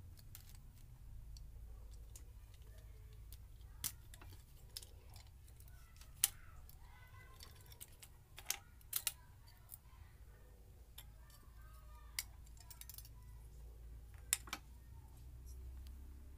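Scattered small clicks and taps as a die-cast toy car's metal body, plastic interior and base are handled and pulled apart, about seven sharp ones in all, over a low steady hum.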